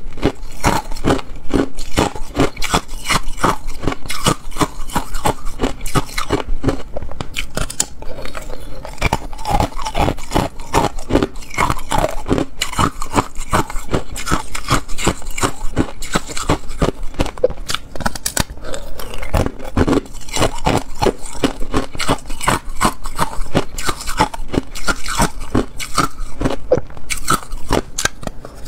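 Clear ice being bitten and chewed close to a clip-on microphone: a dense, unbroken run of sharp cracks and crunches, many in quick succession.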